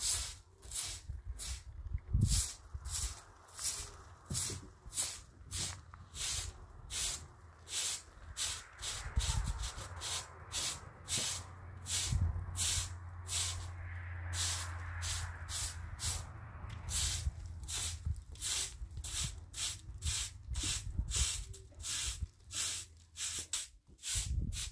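Short straw hand broom sweeping dust and grit off a concrete step, in brisk repeated strokes about two a second.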